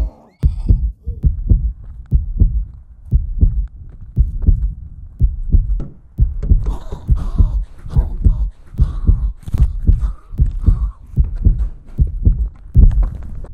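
Rhythmic low thumps, about two a second, with a fainter rustle over them in the middle stretch.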